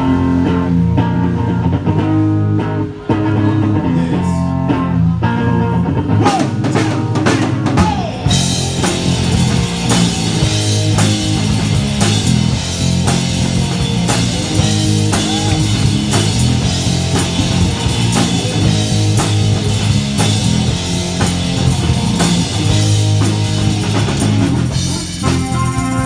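Live rock band playing loudly: electric guitar, bass guitar and drum kit. The sound becomes much fuller and brighter about eight seconds in.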